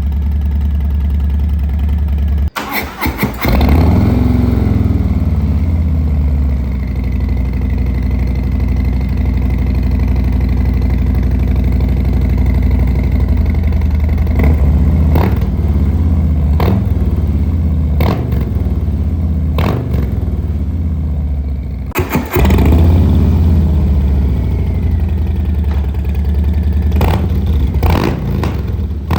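Harley-Davidson V-twin running through an aftermarket Pazoma exhaust, idling with a deep steady beat and revved up and let fall back a few times. The sound breaks off abruptly about two and a half seconds in and again near the twenty-two second mark, each time picking up with a rev. Short sharp cracks come at intervals between the revs.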